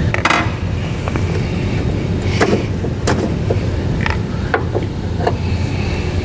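Scattered sharp metal clicks and clinks of hand tools and small nuts and hardware as an old snowplow motor solenoid is unbolted and lifted off a truck's inner fender, with a short rasp near the start. A steady low hum runs underneath.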